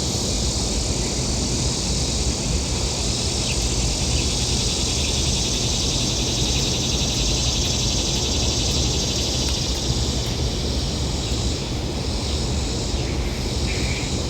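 Steady outdoor ambience: a constant high-pitched hiss over a low rumble, with no distinct events.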